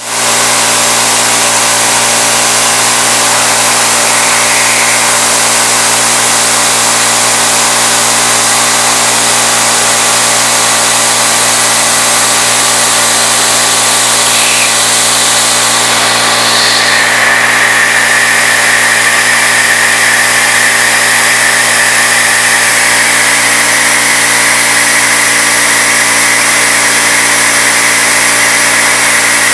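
CNC-retrofitted Bridgeport knee mill machining aluminum, its 3/8-inch end mill turning at 2200 RPM: steady spindle hum and cutting noise. A high tone grows louder about 17 seconds in and holds.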